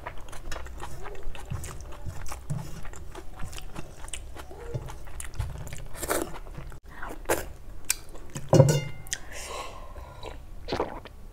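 Close-miked mouth sounds of a person eating rice and egg curry by hand: chewing, lip smacking and finger licking, many short wet clicks. Near the end, drinking water from a steel tumbler.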